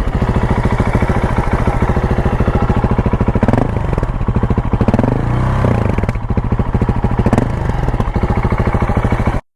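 2020 Husqvarna 701's single-cylinder engine running through a Wings aftermarket exhaust, a steady rapid thumping with several brief rises and falls in pitch as the throttle is blipped. The sound cuts off abruptly near the end.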